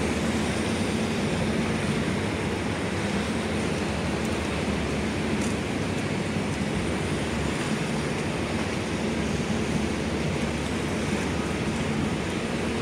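Steady rushing noise of wind and choppy harbor water, with a low droning hum underneath.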